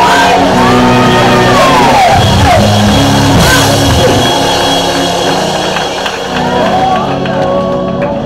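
Church worship music with held keyboard-like chords and drums, and voices calling out over it.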